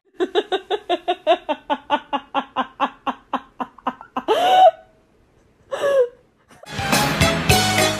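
A person laughing hard in a long string of even 'ha-ha' pulses that slowly tail off, followed by two short high cries with a sliding pitch. Music with a beat comes in near the end.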